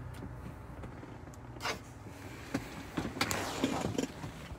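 A few light clicks and knocks with a short rustle a little over three seconds in, over a faint low hum: handling noise inside a truck cab.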